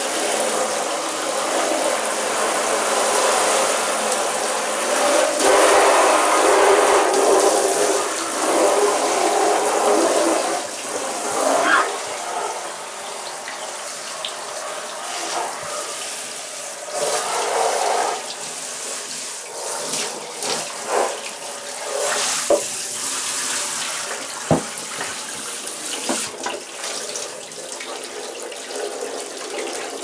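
Handheld shower spray jetting water through a tumble dryer's condenser unit in a shower tray, flushing out trapped lint and hair. The spray is steady, louder for several seconds near the start, then softer, with a few knocks later on.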